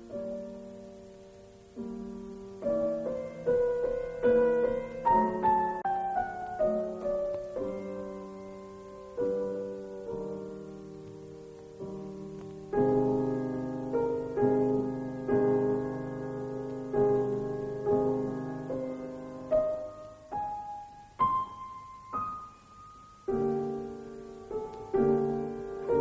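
Slow solo piano music: single notes and a falling run of notes, then repeated chords from about halfway.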